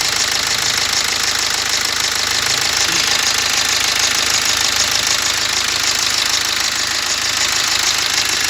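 BMW X1 diesel engine idling steadily with a fast, even diesel clatter, its accessory drive belt removed: the crank damper-pulley noise is absent, which the mechanic takes to mean the damper pulley is at fault.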